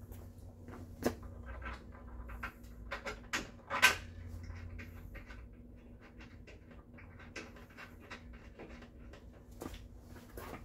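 Knocks and clunks of a wooden cot's frame and slatted base being handled and fitted together. The two sharpest come about a second in and just before four seconds, with lighter clicks later, over a faint steady hum.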